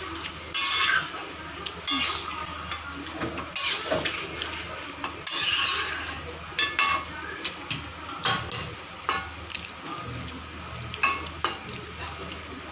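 Metal spatula scraping and stirring fried chicken pieces and capsicum around a steel wok, in irregular scrapes every second or two, while the chilli sauce sizzles over the flame.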